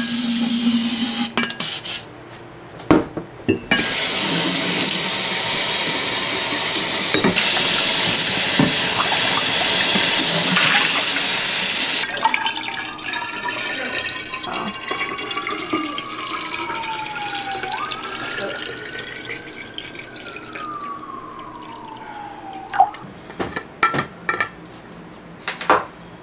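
Kitchen tap running loudly while an insulated stainless-steel water bottle is rinsed. About halfway through, water is poured from a filter pitcher into the bottle with a tone that slides in pitch as it fills, and a few clicks near the end as the bottle and lid are handled.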